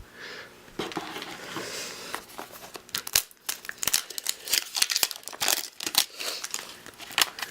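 Crinkling and tearing of a toy blind-pack wrapper being pulled open by hand, a dense run of sharp crackles.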